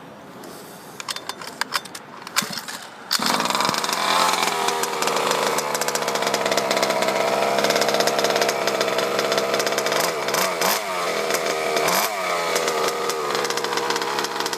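1/5-scale HPI Baja RC car's small two-stroke petrol engine: a few short rattles, then it catches about three seconds in and runs steadily, its revs swooping up and down briefly two or three times near the end.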